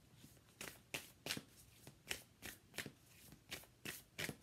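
A deck of oracle cards being hand-shuffled, with cards slapping against the deck in short, sharp strokes about three times a second from about half a second in.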